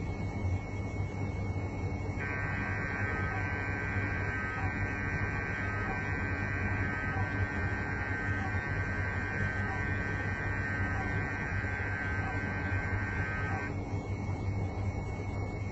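Small model MRI scanner sounding a steady electronic tone through its speaker after its button is pressed. The tone starts about two seconds in and cuts off shortly before the end, over a steady low hum.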